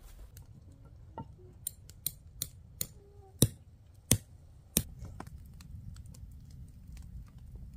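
Wood campfire crackling, with a string of sharp, irregular pops; the loudest come about three to five seconds in.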